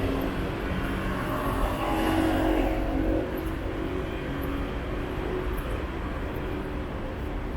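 City road traffic: cars driving past with a steady engine and tyre rumble that eases slightly about three seconds in.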